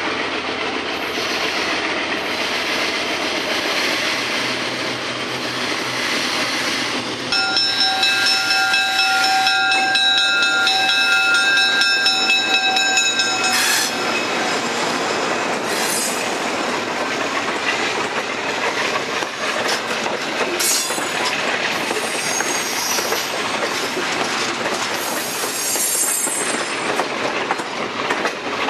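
Diesel-hauled passenger train approaching and passing close by. The locomotive's multi-chime air horn sounds steadily from a little over seven seconds in, for about six and a half seconds. The coaches' wheels then rumble and clack over the rail joints, with thin wheel squeal toward the end.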